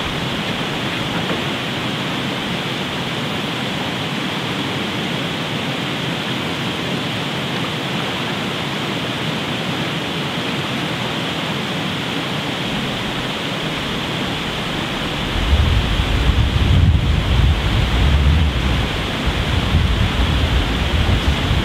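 Steady rushing of river water flowing fast over a shallow gravel bed. About two-thirds of the way in, gusts of wind start buffeting the microphone with a low rumble.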